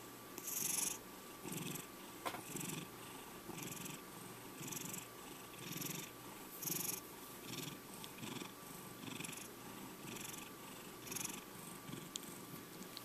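Domestic cat purring close up, a steady rumble that swells with each breath in and out, about one and a half pulses a second.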